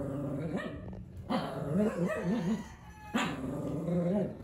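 Two small dogs play-fighting, growling and barking in several bursts, the longest with a wavering pitch.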